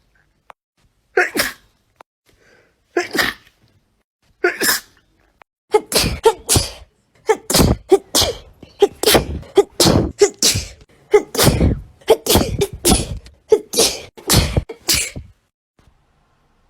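A person sneezing over and over. Three single sneezes come a couple of seconds apart, then a rapid fit of sneezes at about two a second for some ten seconds, which stops near the end.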